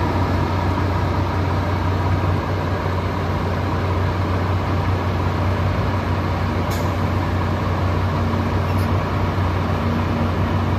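Heavy diesel engine running steadily with an even low drone.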